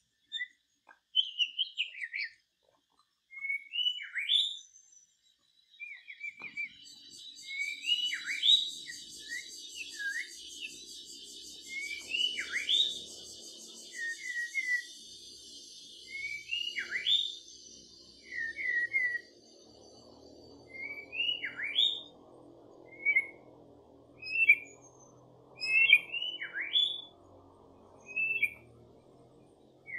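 Bird calls repeated over and over: short, sharp whistled notes that sweep quickly downward, mixed with brief chattering trills, one every second or two. A faint steady hiss lies underneath.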